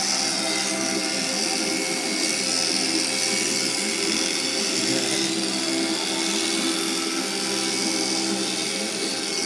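Electric shearing handpiece running steadily as it clips the fleece off an alpaca, a constant motor hum.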